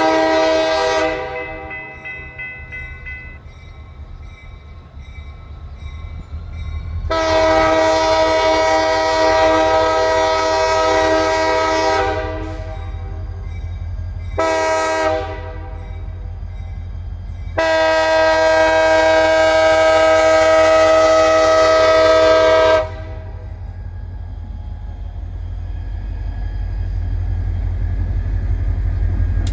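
Diesel freight locomotive's air horn sounding the grade-crossing signal: the end of a long blast, then a long blast, a short one and a final long one. A low engine rumble builds underneath toward the end as the locomotive approaches.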